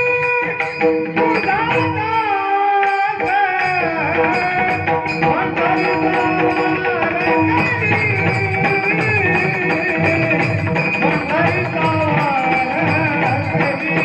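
A high, sweet voice singing a devotional melody with sliding ornaments, over an evenly repeating hand-drum beat.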